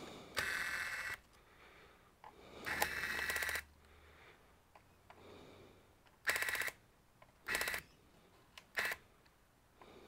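Electric screwdriver running in five short bursts, each a fast buzzing whir: two of about a second each, then three briefer ones near the end. It is undoing the screws of a laptop's bottom cover.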